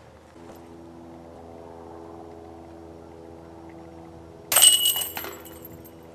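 A putted disc striking the hanging chains of a disc golf basket, a made putt. It gives a sudden metallic clash and jingle of chains about four and a half seconds in, ringing out over about a second.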